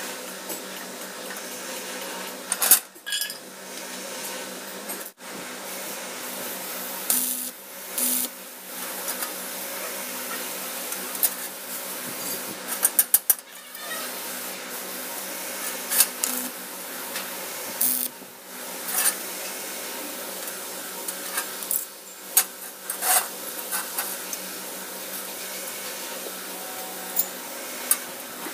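Steel bars and sheet steel clinking and clanking at irregular intervals as they are handled and set down, over a steady machine hum.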